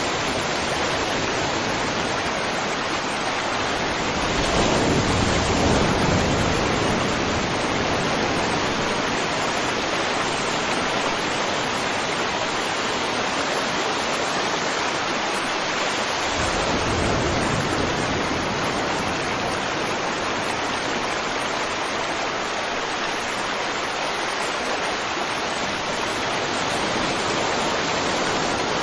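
Steady rushing water, an even hiss that swells a little louder twice, about five seconds in and again around seventeen seconds in.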